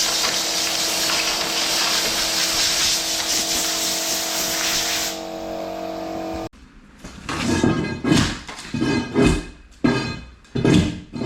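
A power tool running with a steady motor hum and a loud hiss, stripping paint from a wall; the hiss stops about five seconds in and the hum a second later. After a sudden cut, rhythmic background music.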